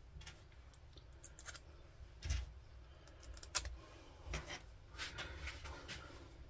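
Small screws being fitted by hand into a two-stroke strimmer carburettor: faint, scattered clicks and light scrapes of small metal parts being handled.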